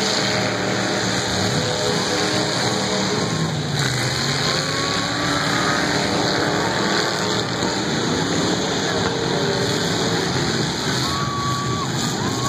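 Many demolition-derby cars' engines running and revving together, a dense steady wash of engine noise with revs rising and falling.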